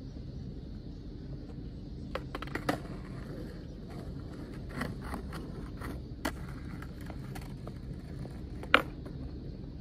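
Skateboard rolling on asphalt over a steady low rumble, with a scattering of sharp wooden clacks as the board's tail and nose strike the ground during endover practice; the loudest clack comes near the end.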